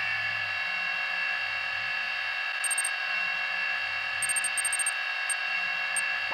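Steady synthesized electronic drone of several held tones over a soft low pulsing throb, with short clusters of high beeps a few times, as in a computer-interface sound effect.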